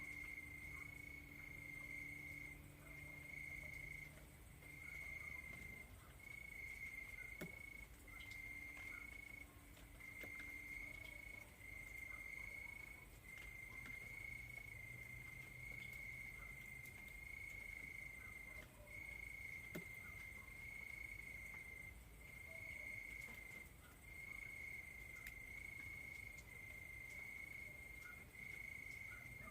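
Crickets chirping in a faint, steady high-pitched trill that breaks off briefly every second or two.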